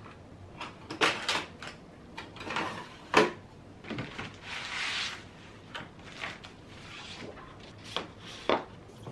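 Sticker paper pack and plastic sleeve handled on a desk: scattered knocks and taps as the pack is set down and moved, the sharpest about three seconds in, and a sliding rustle of paper and plastic around the middle.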